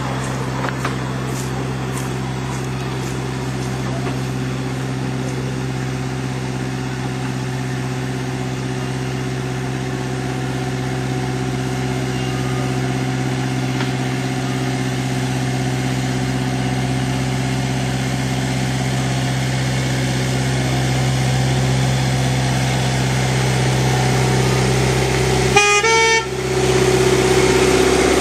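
Engine of a 10¼-inch gauge miniature diesel-outline locomotive running at a steady pitch as it hauls a train, growing louder as it draws near. A brief jumbled burst of noise comes about two seconds before the end.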